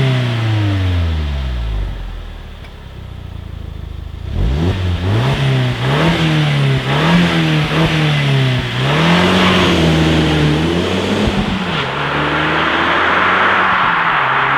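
Audi TT 225's stock turbocharged 1.8-litre four-cylinder engine being revved through its standard exhaust. The revs fall back to idle in the first two seconds, then from about four seconds in it is blipped several times in quick succession, held higher for a moment, and settles to a steadier raised engine note near the end.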